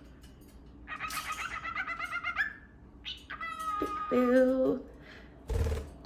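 Cockatiel chattering: a warbling run of chirps about a second in, then a second call about three seconds in that ends on a lower, steadier note. A brief rustle just before the end.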